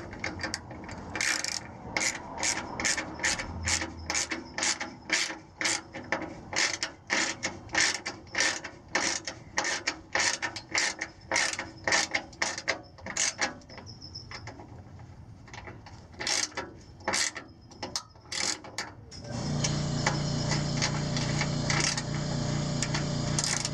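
Socket ratchet clicking as a splash-shield bolt is snugged down, about two clicks a second, thinning out towards the end. A steady hum starts a few seconds before the end.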